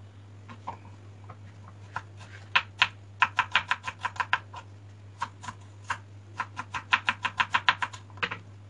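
Kitchen knife slicing peeled garlic cloves on a wooden cutting board: sharp taps of the blade on the board in two quick runs of about seven a second, over a steady low hum.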